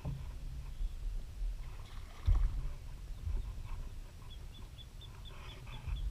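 Handling noise in a plastic fishing kayak as an angler plays a fish and readies a landing net: rubbing and a sharper knock a little over two seconds in, over low wind rumble on the microphone. In the second half a bird gives a fast, even run of short high chips, about four a second.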